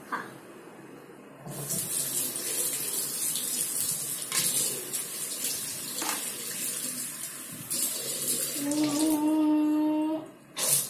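Bathroom washbasin tap turned on about a second and a half in, water running and splashing into the basin while a toothbrush and mouth are rinsed, then shut off shortly before the end. Near the end a steady pitched hum sounds over the water for a second or two, and a brief loud noise follows the shut-off.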